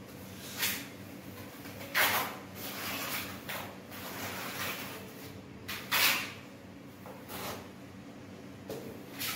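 Trowel scraping adhesive onto a rough concrete wall: about half a dozen short scraping strokes at uneven intervals, the loudest about two and six seconds in.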